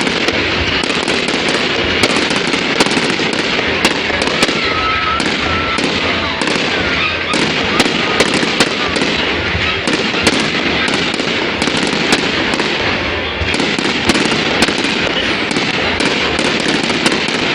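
Fireworks going off without a break: a dense crackle with many sharp bangs and pops throughout.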